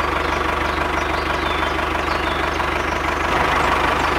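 Tractor engine idling steadily, with a fast, even chugging knock.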